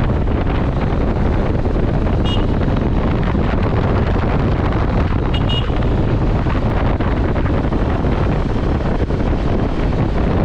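Heavy wind buffeting the microphone on a moving vehicle: a steady, loud rush with vehicle noise beneath it. Two brief high chirps come through, about two and five seconds in.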